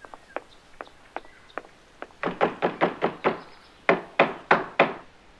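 Knocking on a front door: a few faint taps, then a rapid run of about seven loud knocks, a short pause, and four more evenly spaced loud knocks.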